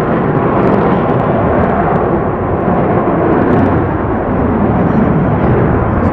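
F/A-18 Hornet fighters taking off in afterburner: loud, steady jet engine noise from their twin F404 turbofans.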